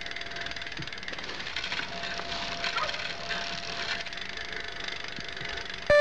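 Bicycle drivetrain turning over: a newly fitted chain running over the rear cassette and through the rear derailleur's pulleys as the pedal is turned by hand, a steady fine clicking rattle. The chain is being run to check the derailleur after its chain-tension screw was adjusted.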